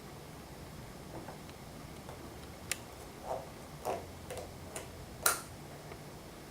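Half a dozen light, sharp clicks and taps at uneven intervals, the loudest near the end, from bearing-press tool parts and bottom bracket bearings being handled, over a low steady hum.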